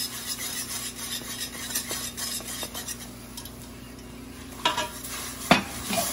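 Wire whisk beating a butter-and-flour roux with chicken stock in an aluminium saucepan to work out the lumps: rapid scraping strokes against the pan with a light sizzle, easing off about three seconds in. Two sharper metallic clinks of whisk on pot come near the end.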